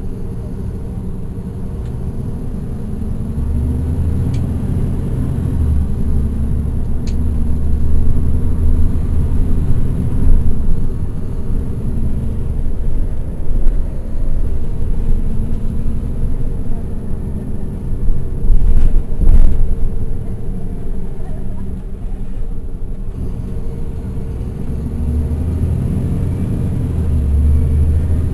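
Caterpillar C13 ACERT diesel engine of a NABI transit bus, heard from the rear seats, pulling under load. Its drone rises in pitch over the first few seconds, holds steady, and climbs again near the end. A short loud burst of noise comes about two-thirds of the way through.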